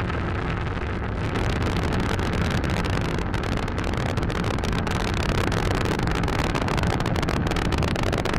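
Falcon 9 first stage's nine Merlin engines heard from the ground during ascent: a steady, loud rumble with a dense crackle running through it.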